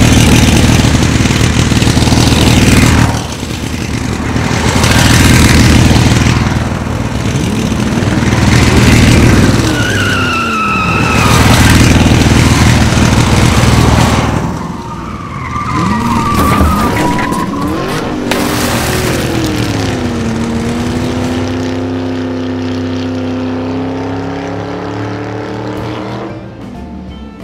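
Racing car engine sound effects dubbed over the animation: engines running hard, swelling and fading as cars pass, with a tyre squeal about ten seconds in and another about sixteen seconds in. Near the end the sound settles into a lower, steady note.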